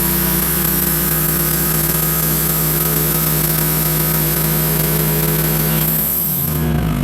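Wood-Mizer LX150 portable bandsaw mill running steadily: a loud engine hum with a constant high hiss over it. About six seconds in, the steady hum breaks and shifts in pitch.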